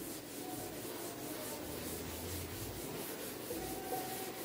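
Chalkboard duster rubbing across a chalkboard in quick back-and-forth strokes, wiping the board clean.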